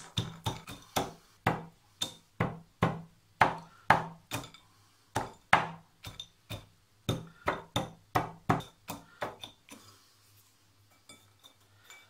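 Toasted hazelnuts and almonds being crushed in a ceramic bowl with the end of a wooden pestle: steady knocks about three a second, stopping about two and a half seconds before the end, then only a few faint ticks.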